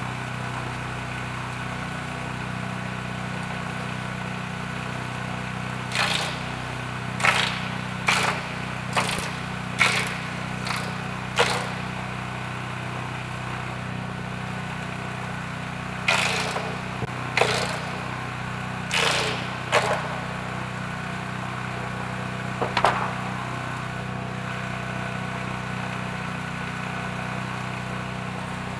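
Small gasoline engine of a guadua bamboo cutting and polishing machine running steadily. Over it come short, sharp noises as a bamboo pole is worked through the cutter: a run of about seven in quick succession, then four more and a last one.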